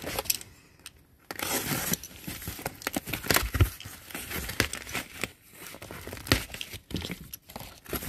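Box cutter slitting the packing tape on a cardboard box, with tape tearing and cardboard scraping and rustling in uneven strokes, starting about a second in.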